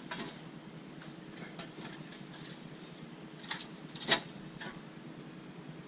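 A few light clicks and taps from parts and tools being handled during wheel hub reassembly, the sharpest two about half a second apart around the middle, over a low steady hum.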